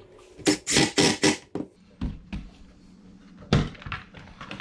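Knocks and clatter of a bar quick clamp and tools being handled on a workbench, ending in one loud thump about three and a half seconds in.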